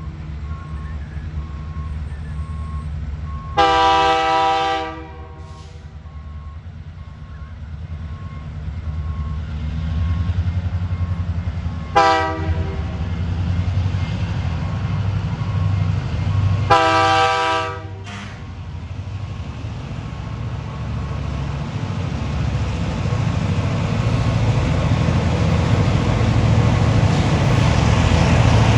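Diesel locomotive's air horn sounding three blasts: a long one about four seconds in, a short one near twelve seconds, and another long one around seventeen seconds. Under them the low engine rumble of the approaching train grows steadily louder toward the end.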